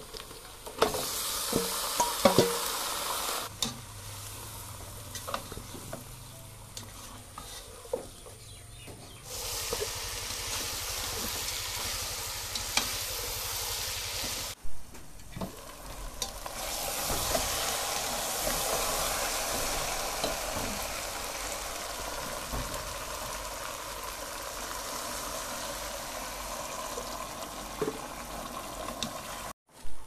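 Spiced beef tipped into hot oil and fried onions in a non-stick pot, starting to sizzle loudly about a second in, with a few clinks of the metal bowl against the pot. It then settles into a steady sizzle of meat frying in oil, broken twice by short gaps.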